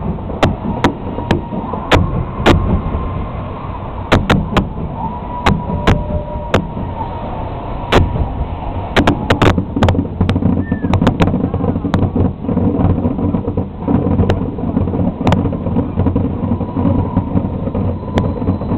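Fireworks finale: many sharp bangs going off in quick, irregular salvos over a steady low rumble that grows heavier in the second half.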